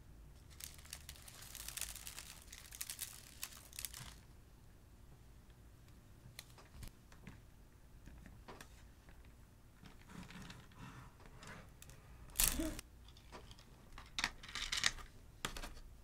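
Irregular small crackles, clicks and crinkles of slime and shaving-cream foam being handled and spread with a silicone spatula on a clear plastic sheet, with a louder crackle about twelve seconds in.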